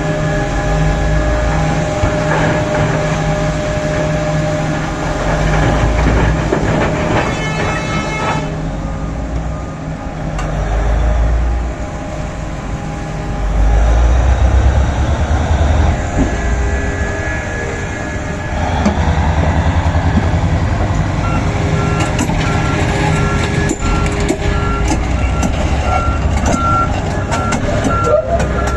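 Komatsu PC4000 mining excavator working in poorly blasted solid rock: its engine runs steadily under load, swelling into heavy low rumbles several times as the bucket scrapes and rattles against the rock. In the second half a repeating beeping alarm sounds, a few beeps a second.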